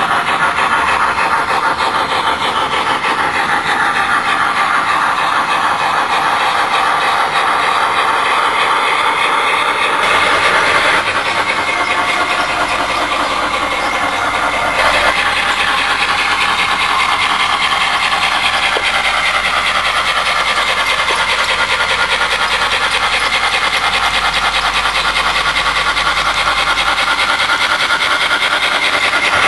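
Steam locomotive sounds from the Proto-Sound 3.0 system of an MTH HO-scale Erie 2-8-8-8-2 Triplex model, played through its onboard speaker as it runs: a steady, fast chuffing that carries on without a break.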